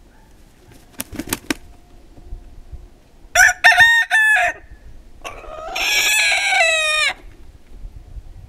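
Pavlovskaya roosters crowing. A few sharp clicks come about a second in, then two crows in quick succession, the second one longer.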